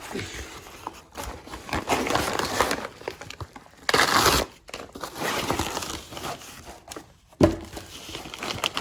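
Paper manila envelope being opened and handled: crinkling and tearing in bursts, loudest about four seconds in, with a single sharp knock near the end.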